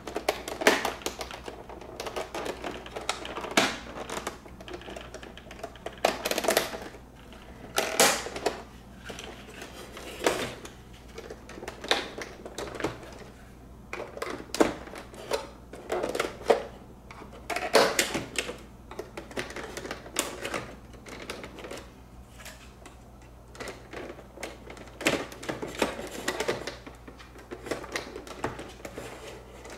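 Plastic locking tabs of a Mercedes-Benz W220 instrument cluster housing being pried apart by hand: irregular clicks and pops of hard plastic, one every second or so, as the tabs are worked free.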